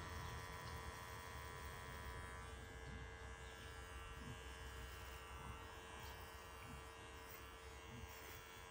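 Electric hair clippers running with a faint, steady buzz while cutting short hair on the side and back of the head.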